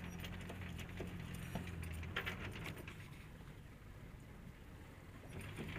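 Sailing yacht's inboard engine running at low revs while berthing: a steady low hum that eases off after about two seconds and picks up again near the end. A few light metallic clinks sound over it.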